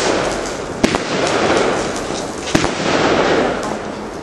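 Men Shun 'Reign of Terror' multi-shot firework cake firing shot after shot. Two sharp bangs about a second and three-quarters apart stand out over a continuous rushing hiss of bursting stars.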